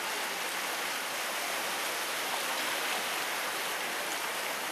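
Floodwater rushing and splashing steadily as a pickup truck's wheels plough through it.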